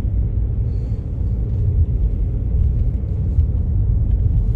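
Steady low rumble of a moving car's road and engine noise, heard from inside the cabin.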